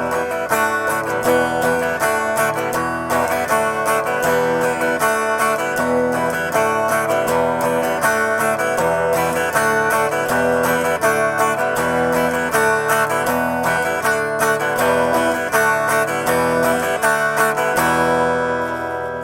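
Guitar strummed with a pick in a fast, steady rhythm, alternating E minor and D chords with a strum across the open strings at each change (the open-up strum). The strumming stops just before the end.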